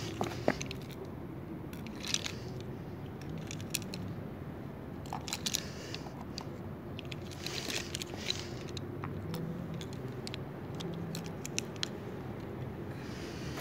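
Plastic pens and markers clicking and rattling against each other in a hand and being set down on a hard painted floor: a scatter of light clicks and small clatters over a faint steady hum.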